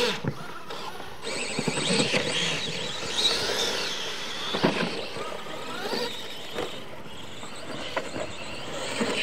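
Radio-controlled monster trucks racing on dirt, their motors whining and rising and falling in pitch as they accelerate. Several sharp knocks stand out, the loudest about halfway through.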